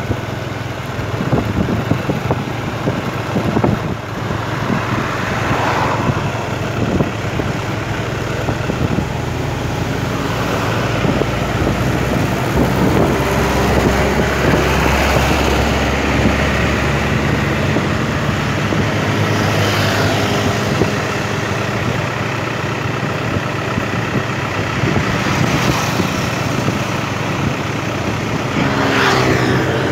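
Road noise from a moving motorcycle riding just ahead of an Isuzu NMR71 diesel dump truck: engines running steadily, with wind and tyre noise. The engine hum grows louder through the middle, and there are a few brief swishes.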